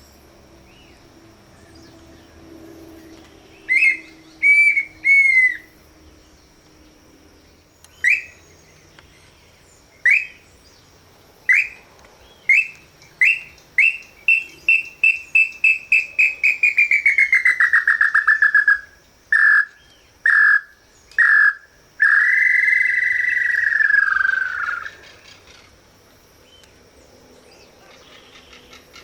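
Clear whistled calls of a pé-vermelho tinamou: spaced single whistles that speed up into a fast run, sliding down in pitch, then a few short notes and one long falling whistle. A faint steady insect drone lies underneath.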